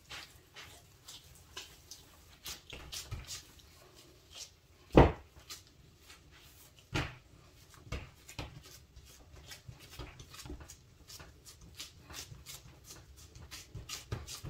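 Gloved hands pressing and patting soft pie dough flat on a glass cutting board: scattered light taps and knocks, with a loud thump about five seconds in and smaller ones near seven and eight seconds.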